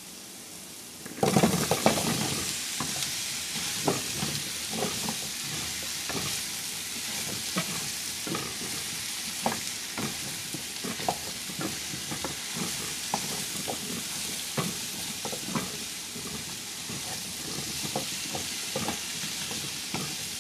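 Cubed squash tipped into hot oil and browned garlic in a nonstick frying pan about a second in: the sizzling jumps up suddenly, with a few thuds as the pieces land. Steady frying sizzle follows, with the scrape and tap of a plastic spatula stirring the cubes.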